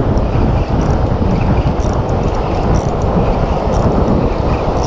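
Strong wind rushing and buffeting the microphone, a steady, loud rumble.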